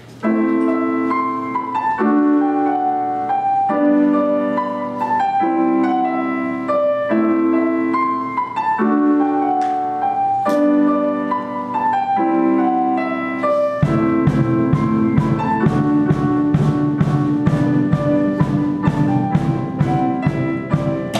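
Roland FP-50 digital pianos played as an ensemble: a repeated piano chord pattern, a chord a little over once a second, under a falling melody. About two-thirds of the way through, a steady drum beat with bass comes in and the playing fills out.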